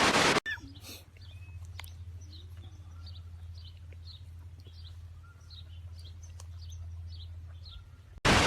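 A small bird chirping in short, high, downward notes about twice a second over a steady low hum. There is a brief loud sound at the very start and another near the end.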